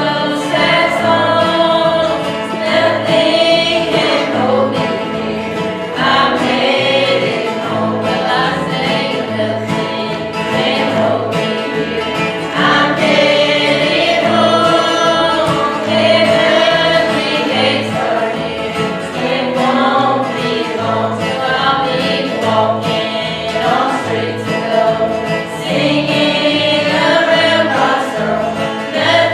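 Church choir singing a gospel song with instrumental accompaniment.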